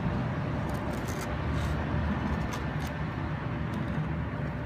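Steady low rumble of a running motor vehicle, with a few brief faint high rustling sounds.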